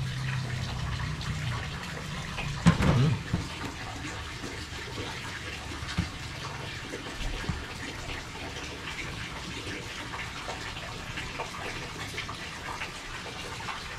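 Tap water running steadily into a sink, with a brief louder knock about three seconds in and a sharp click about six seconds in.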